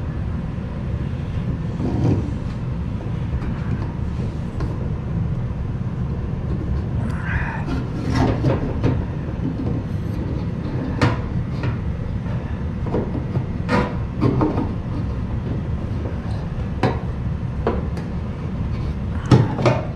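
Fuel pump hanger being worked down into a fuel tank's pump opening: scattered metallic clicks, scrapes and a few sharp knocks over a steady low rumble.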